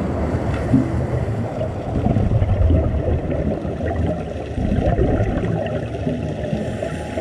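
Low, steady underwater rumbling and gurgling of moving water, heard by a camera underwater.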